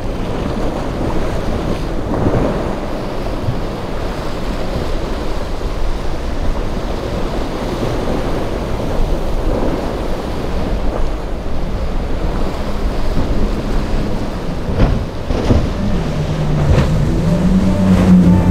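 Surf and wind buffeting the microphone, with the outboard motors of small center-console boats running through the inlet chop. Near the end a louder engine drone comes in as an outboard-powered boat passes close.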